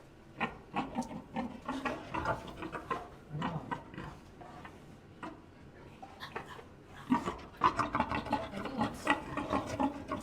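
Male wild boar grunting in short, quick bursts, with a denser run of grunts over the last three seconds; the boar is excited and worked up.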